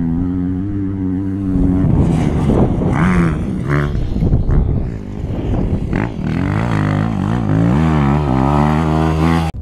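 Motocross bike engine revving up and down as the bike is ridden, heard close from an on-board camera, with rushing wind noise.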